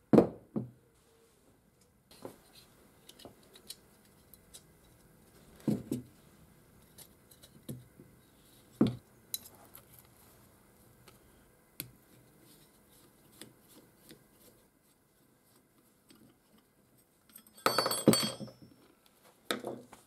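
Parts of an old ignition coil and key switch assembly being handled and set down on a wooden workbench: scattered knocks, light taps and metal clinks. A quick cluster of ringing metal clinks comes near the end.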